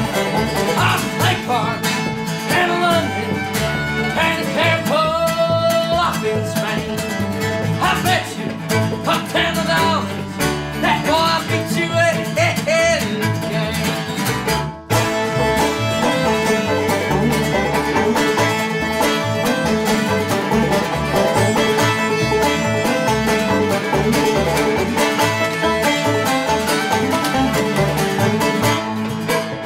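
Bluegrass-style string band with fiddle, acoustic guitar, banjo and upright bass playing a steady-tempo tune, with a man singing over the first half. There is a brief drop-out just before the middle, after which the instruments carry on alone.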